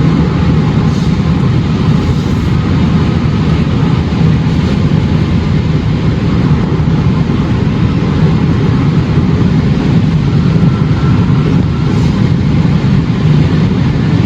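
Car cruising at highway speed, heard from inside the cabin: a steady low rumble of engine and tyre noise.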